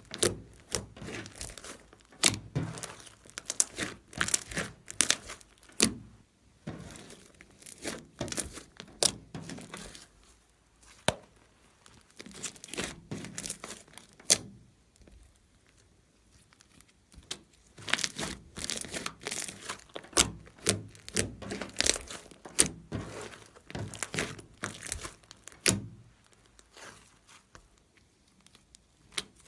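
Slime being squished and stretched by hand, giving dense, irregular sticky clicks, pops and crackles, with a couple of brief quieter pauses.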